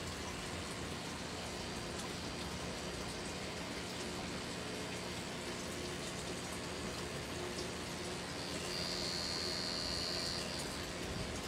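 Pen-style tattoo machine running with a low steady hum under a steady hiss. A thin high whine joins for about two seconds near the end.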